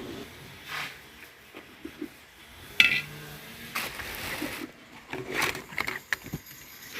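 Dishes and serving utensils clinking and knocking in scattered strokes as cooked food is dished out onto plates, with one sharp knock about three seconds in.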